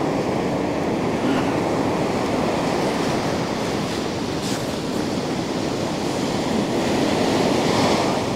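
Ocean surf breaking on a sandy beach: a steady, unbroken rush of waves.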